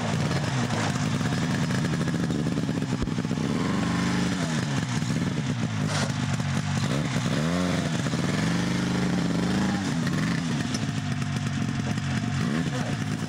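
Two-stroke snowmobile engine running, revving up and down several times as the machine pulls away through snow.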